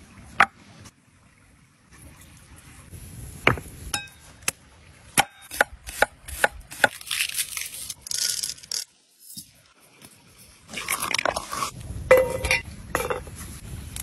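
Food-preparation handling on wooden boards and bowls: a run of sharp knocks and clicks, a hissing rustle midway, then more clattering and rustling.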